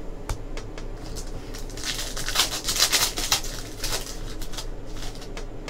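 Foil trading-card pack wrapper being torn open and crumpled by hand: a run of crinkling crackles in the middle, with a few light clicks before and after.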